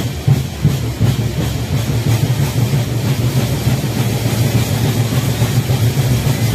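Drums played in a fast, steady rhythm, loud, with the weight in the low beats.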